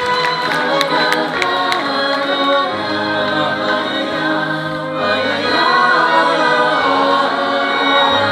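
Live music with a choir-like sound of sustained sung and played harmonies, the introduction of a new song. The tail of applause fades in the first second.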